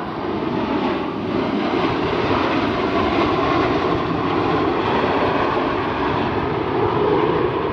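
Blue Angels jet fighters flying past in tight formation, making loud, steady jet engine noise.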